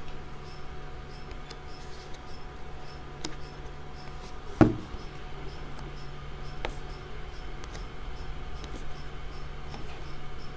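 Light clicks and ticks of small objects being handled on a tabletop, with one sharp knock about four and a half seconds in, over a steady low hum.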